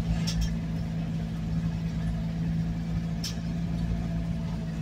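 Vehicle engine and road noise heard from inside the cabin while driving: a steady low drone, with a couple of faint ticks.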